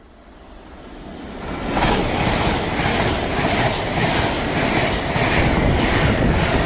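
A train approaching, growing louder over about two seconds, then passing close by with a steady loud rumble and a regular clatter about twice a second.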